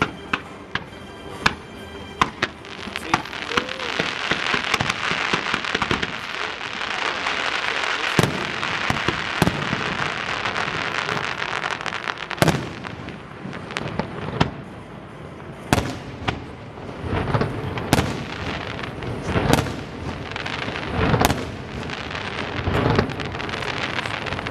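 Aerial fireworks display: shells bursting with sharp bangs, over a dense spell of rapid crackling in the first half, then a run of louder, separate booms in the second half.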